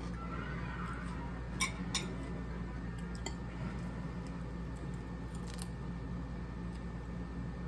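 Forks clinking and scraping against dinner plates during a meal: a few sharp clinks, two close together about one and a half seconds in and a couple more later, over a steady low hum.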